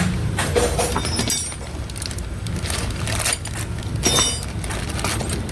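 Small metal parts being handled: a series of sharp clinks and knocks, a couple of them ringing briefly, over a steady low hum.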